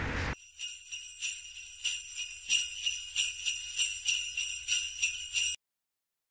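Sleigh bells jingling in an even shaking rhythm, about three shakes a second, then cutting off suddenly near the end.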